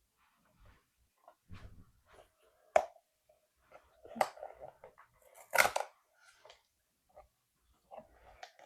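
Blind-box packaging being handled and opened: scattered plastic crinkles and rustles with sharp clicks, the loudest burst about five and a half seconds in.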